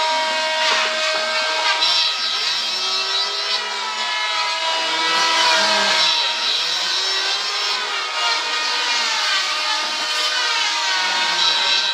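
Power tool cutting wood, its motor whining steadily with the pitch shifting up and down as it works through the wood.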